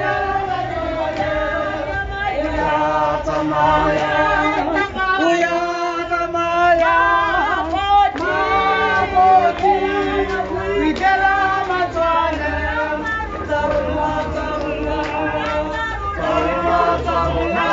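A group of men and women singing together as a choir, one continuous song.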